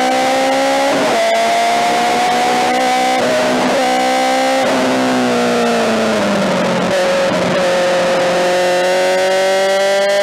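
BMW M3 DTM touring car's four-cylinder racing engine, heard onboard at high revs. The pitch climbs steadily through the gears with sharp drops at each upshift, about a second in and a few quick breaks around the middle, then falls as the car slows before climbing hard again near the end.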